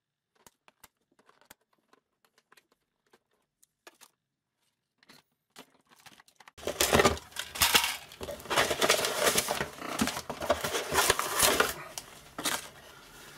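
A few faint snips as cable ties are cut with scissors. Then, from about six and a half seconds in, several seconds of tearing and crinkling as the cardboard packaging is ripped apart to free the toy blaster and its darts.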